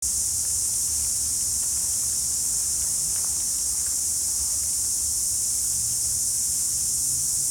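Steady, high-pitched chorus of cicadas shrilling continuously.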